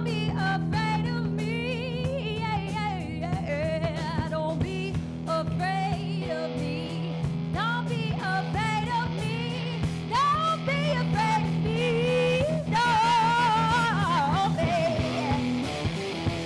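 Freak-jazz band playing a song: steady low drone notes under a wavering, sliding lead melody with strong vibrato.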